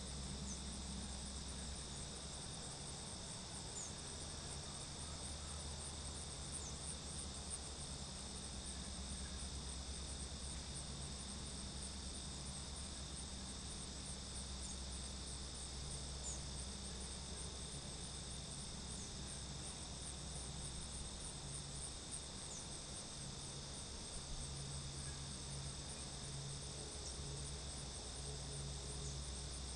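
Steady chorus of crickets, a continuous high trill that doesn't let up, over a faint low hum.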